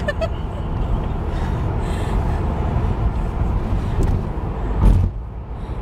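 Steady low rumble of a car's road and engine noise heard from inside the cabin while driving, with a single thump about five seconds in.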